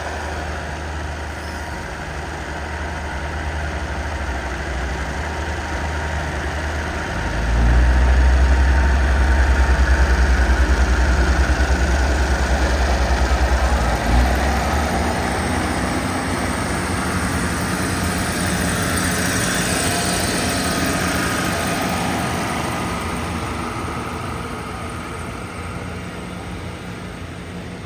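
Diesel locomotive of a passenger train pulling out, its engine running loud and low as it passes for several seconds. Then the rolling of the carriages slowly fades away.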